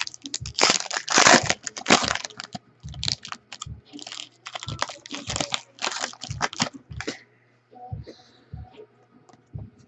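A trading-card pack's wrapper being torn open and crinkled: dense, irregular crackling for about seven seconds, then only a few faint rustles.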